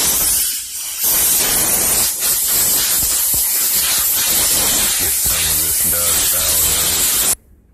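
Compressed-air blow gun hissing loudly as it blows dust out of a pedestal fan's motor housing and base, easing briefly about half a second in, then cutting off sharply near the end.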